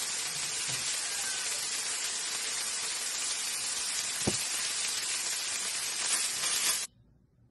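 Fish steaks sizzling in hot oil in a frying pan, a steady dense hiss, with a single short knock about four seconds in. The sizzling cuts off abruptly near the end.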